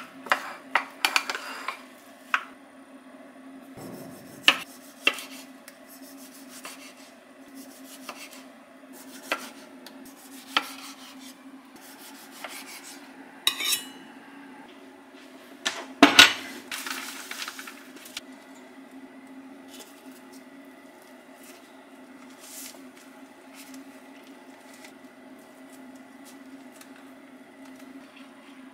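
Kitchen food-prep sounds: scattered clinks and knocks of utensils against dishes and a wooden cutting board, with a knife slicing a tomato on the board, the loudest knock about sixteen seconds in. A low steady hum runs underneath.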